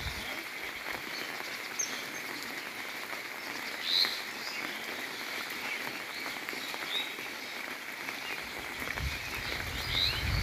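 Outdoor ambience by ponds: short bird chirps every second or two, the loudest about four seconds in, over a steady high-pitched chorus of calling animals.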